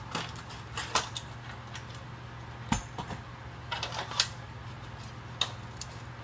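Scattered light clicks and knocks from a crushed car radio/CD player's metal chassis being handled and turned over, over a steady low hum.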